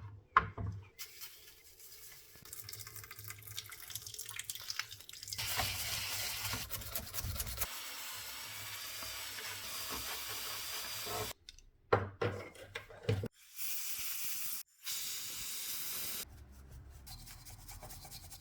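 Running water splashing in a sink as parts are washed, a noisy wash in several short stretches that cut off abruptly between them.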